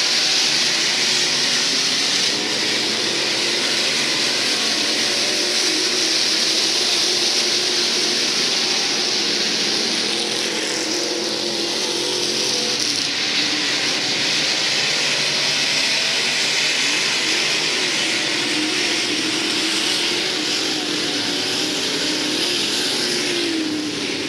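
IMCA SportMod race cars running at speed, several V8 engines blending into a steady din whose pitch wavers as the cars pass.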